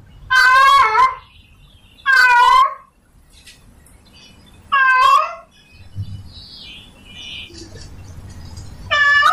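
Tomcat in heat yowling to call a female: drawn-out meows with a wavering pitch, three in the first half and a fourth starting near the end.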